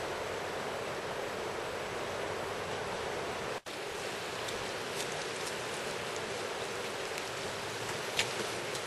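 Steady rush of a wide, shallow river flowing past and under a low concrete bridge, with a few faint short ticks near the end.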